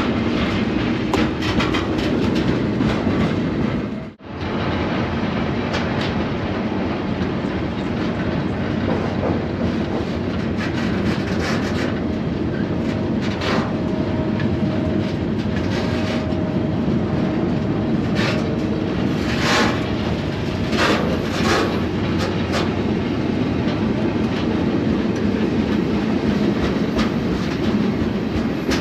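Freight train rolling along the rails, heard from aboard: a steady rumble with the clickety-clack of wheels over the rail, cut off briefly about four seconds in.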